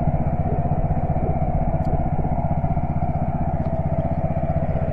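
Small fishing boat's engine running steadily, with an even, fast chugging pulse.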